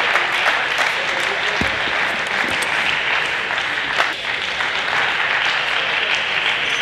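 Spectators applauding steadily, with a single sharp knock about four seconds in.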